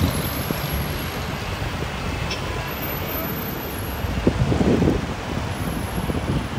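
Steady road traffic noise from cars and jeepneys on a busy city street, swelling briefly a little over four seconds in.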